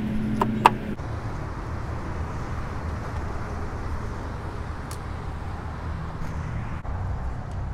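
Steady low outdoor rumble of road traffic, with a sharp click about two-thirds of a second in. A steady hum stops abruptly about a second in.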